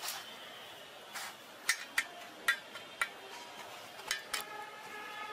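Light clicks and clinks from hands working in steel bowls, pressing a fish chop into bread crumbs: about eight short sharp taps, irregularly spaced.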